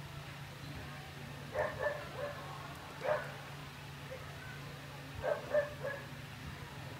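A dog barking: several short barks in small groups, about a second and a half in, once near the middle and again near the end. A steady low hum runs underneath.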